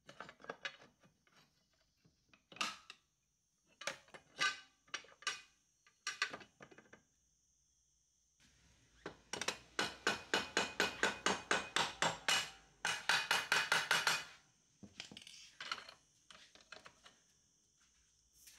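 A mallet tapping the swingarm onto the rear axle of a Honda PCX scooter, seating it in a fast run of even strikes, about four a second, with a short break partway through. Before the run, scattered knocks and clunks as the swingarm is worked into place by hand.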